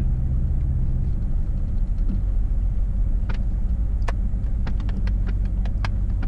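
Four-wheel drive's engine and tyres rumbling low and steady as it rolls along a dirt track, with a scatter of short sharp clicks in the second half.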